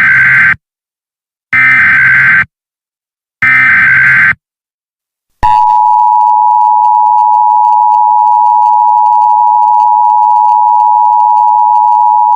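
Emergency Alert System header: three one-second bursts of screechy digital data tones, then, about five seconds in, the steady two-tone EAS attention signal. Together these announce an emergency alert message.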